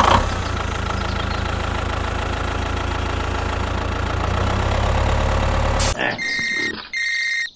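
Tractor engine starting and then running steadily at idle. About six seconds in it cuts off, and a different sound with high steady tones plays in two short parts.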